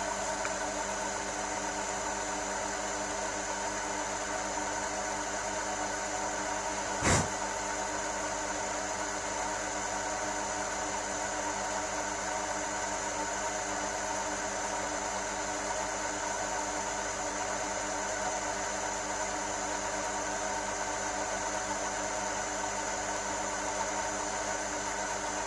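Large Chinese metal lathe running at a steady speed, its motor and gearing giving a steady hum with several held tones. One sharp click about seven seconds in.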